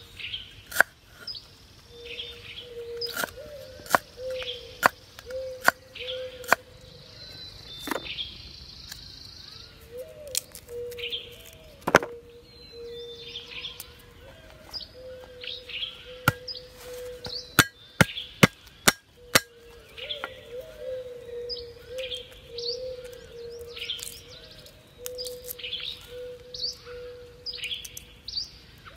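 Cleaver knocking sharply on a wooden chopping board as lemongrass and garlic are sliced: single strokes every second or so, with a quick run of them about two-thirds through. Birds chirp and call in the background.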